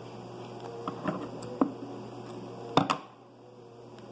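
Handling noises from a paper squish being worked by hand: a few brief clicks and rustles, the loudest two close together about three seconds in, over a steady electrical hum.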